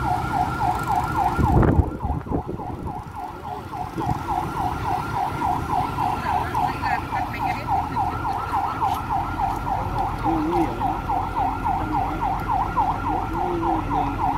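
Fire engine siren sounding a fast yelp, sweeping up and down in pitch about four times a second without a break. A loud low thump about two seconds in.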